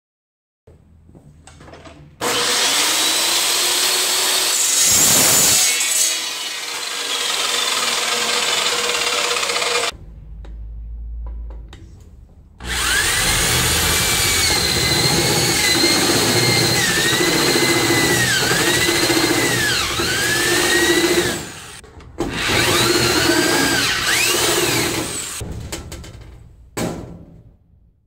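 Cordless drill with a step bit boring through galvanized sheet-steel framing. It runs in three long bursts and a short final one, the motor's whine dipping and recovering as the bit bites into the metal.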